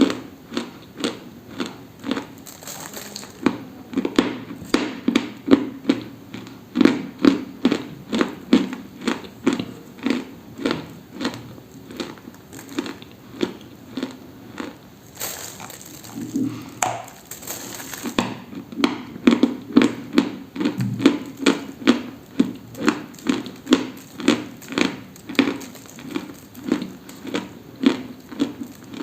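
Dry crunching in close-up, in a steady rhythm of about two crunches a second. A short rustling hiss comes about halfway through.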